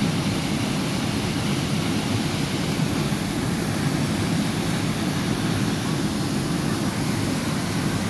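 Waterfall pouring into a rock pool: a steady, unbroken rush of falling water, deepest in its low range.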